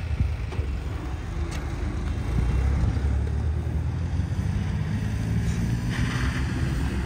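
New Holland 3630 tractor's three-cylinder diesel engine running, growing louder about two and a half seconds in.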